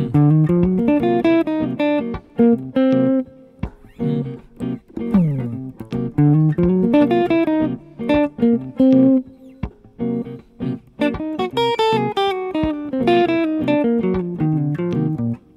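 Semi-hollow electric guitar playing fast single-note improvised phrases that run up and down, with a sliding downward note about five seconds in and short pauses between phrases. The lines are melodic-minor phrases over a Cm7(b5) half-diminished chord.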